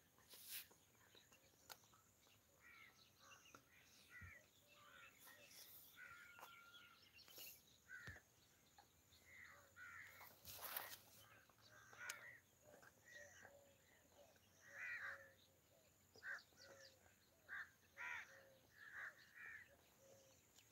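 Faint bird calls, many short calls scattered throughout, over near silence, with a few soft clicks.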